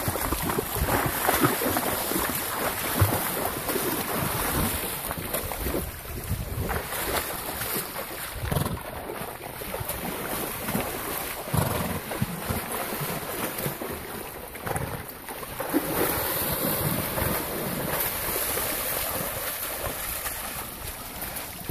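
Horses wading through a shallow creek, their hooves splashing and churning the water in an irregular run of splashes.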